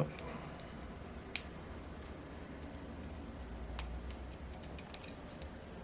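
Small light clicks and taps of a pick against small metal engine parts while a part is being lined up, with one sharper click about a second and a half in and a few faint ticks later on.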